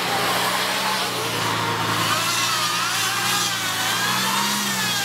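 Van engine running steadily under load while the van is pushed on an icy, snow-covered road, the revs rising and falling once near the end.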